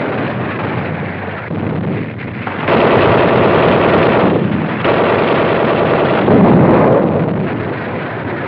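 Machine-gun fire in two long, rapid bursts starting about three seconds in, over continuous rumbling battle noise, on an old film soundtrack with muffled treble.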